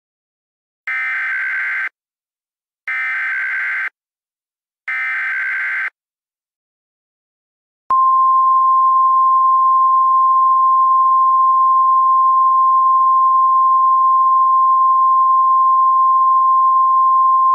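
Emergency Alert System signal: three short screeching data bursts of the SAME header, each about a second long and a second apart, then, about eight seconds in, a loud steady single-pitch attention tone near 1 kHz.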